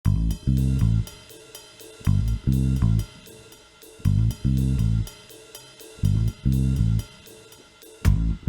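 Background music starts abruptly out of silence: a drum kit with a steady hi-hat, and a phrase of low notes that comes round about every two seconds.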